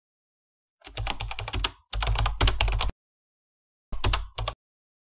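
Computer keyboard typing: rapid keystrokes in two runs of about a second each, then a short run of a few keys near the end.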